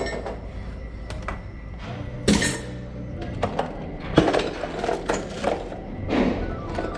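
Rummaging through a sack of loose lock parts: irregular clinks and thunks of small metal pieces knocking together.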